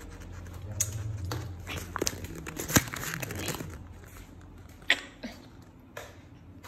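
Folded paper being handled, rustling, with scattered sharp taps and knocks; the loudest come a little under three seconds in and again near five seconds.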